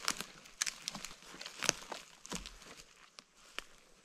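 Footsteps crunching through twigs and forest-floor litter: irregular sharp crunches and snaps, a few each second.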